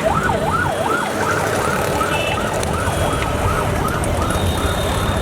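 Emergency vehicle siren sweeping rapidly up and down in pitch, about two and a half cycles a second, over a steady rumble of street traffic.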